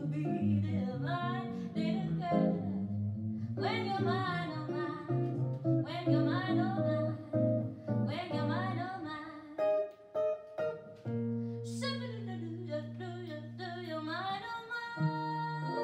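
A woman's voice singing a swing jazz song, accompanied only by a plucked acoustic jazz guitar. A little past the middle, a guitar chord is held and rings for a few seconds before the singing picks up again.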